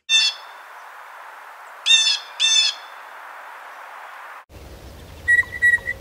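Blue jay giving its "jay" call three times, the second and third close together, over a steady hiss. About four and a half seconds in, the recording changes and a few short, clear, higher notes follow near the end.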